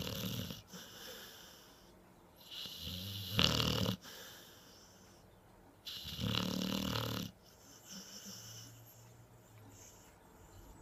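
Loud snoring in slow, regular breaths. One snore ends just after the start, two more come at about two and a half and six seconds in, each lasting about a second and a half, and it is quieter from about seven seconds on.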